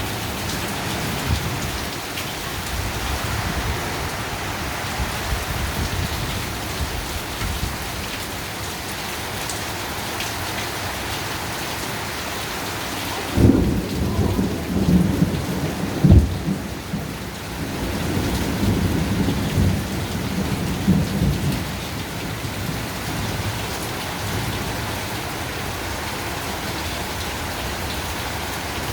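Heavy thunderstorm rain falling steadily, with a clap of thunder about halfway through: two sharp cracks a few seconds apart and a low rumble that dies away over several seconds.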